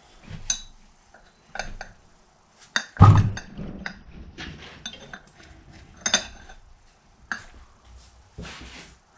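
Metal mower caster-wheel parts clinking and knocking as they are handled and set down, with one heavy knock about three seconds in and lighter clinks scattered before and after.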